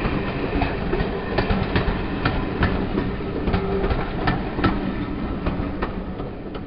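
Railway passenger coaches rolling past, their wheels clicking over the rail joints in an uneven run of sharp clicks over a steady rumble; the sound fades as the last coach goes by near the end.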